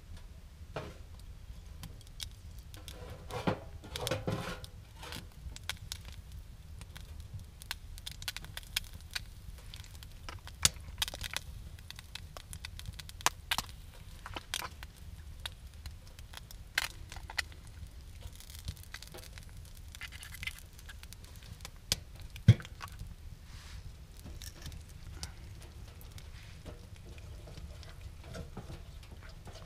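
Eggs frying in oil in a pan on a small wood stove: scattered pops and crackles over a low steady rumble, with taps and knocks as eggs are cracked and handled. One sharp knock about two-thirds of the way through is the loudest.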